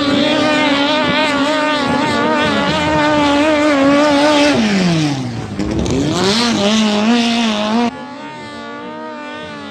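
Racing speedboat engine running hard at high revs, its note dipping sharply in pitch about five seconds in and climbing back. About eight seconds in it drops abruptly to a quieter, steady engine note.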